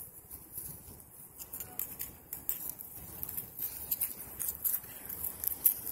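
Irregular light rustling and crackling of dry leaves and grass underfoot as feet and paws move across the ground.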